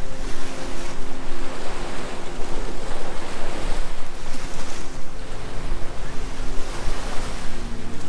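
Small Gulf of Mexico waves breaking and washing up the sand, swelling and ebbing, with wind gusting on the microphone.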